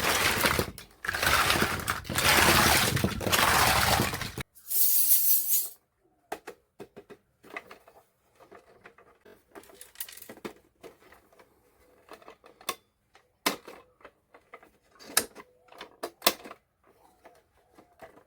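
A few seconds of loud, even rushing noise that cuts off abruptly, then a short high hiss. After that come sparse light clicks and taps of small hard toy kitchen pieces being handled and set down.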